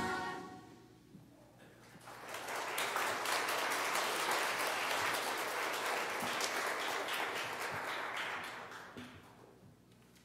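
Music fades out in the first second, then a congregation applauds for about six seconds before the clapping dies away.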